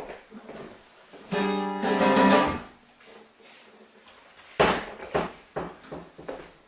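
Acoustic guitar music: a loud passage of held notes, then a run of strummed chords about twice a second.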